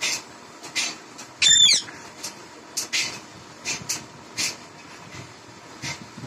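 Caged rose-ringed parakeet giving short, sharp high calls every half second or so, with one louder call about one and a half seconds in whose pitch bends up and down.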